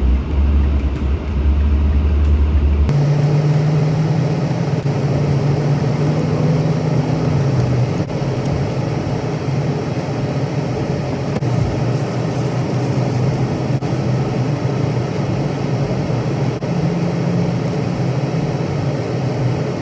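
Vehicle engine running steadily, a continuous low drone whose pitch shifts slightly now and then; about three seconds in, the sound changes abruptly from a deeper hum to a higher drone.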